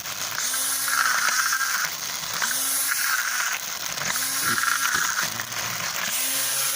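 Cheap cordless grass trimmer's electric motor running, its whine rising and dipping in repeated surges about every second and a half, with a hiss over it.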